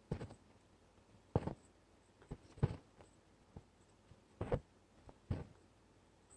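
Stranded embroidery floss drawn through cotton fabric while working an outline stitch: about seven short, faint rasps, roughly one a second, each as the thread is pulled through and snugged tight.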